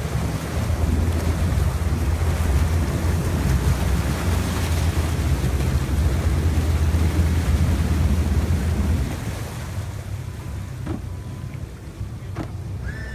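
Four Mercury FourStroke outboards running in gear at low speed, a steady low drone under churning prop wash, with wind buffeting the microphone. The engine drone drops away about nine seconds in.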